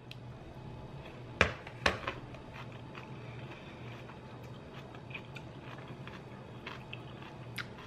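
A person taking a forkful of creamy cucumber salad and chewing it quietly, with two sharp clicks about a second and a half in, a few faint ones later, over a faint steady low hum.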